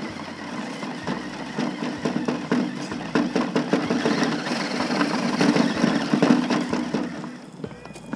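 Electric RC rock crawler driving over rough ground: a steady motor and gearbox whine that wavers with throttle, with scattered small clicks and ticks. It dies down near the end.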